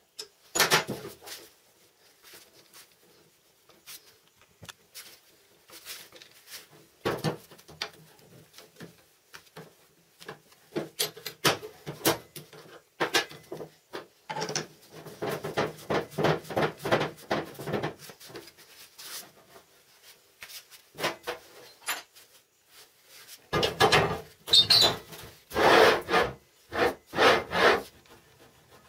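Metal clinks and rattles, with a quick run of ticks partway through, as the bolts of a steel angle-grinder guide carriage are tightened by hand and with a wrench. Near the end, louder bursts of rattling as the carriage's bearing rollers are run back and forth along a steel angle-iron rail.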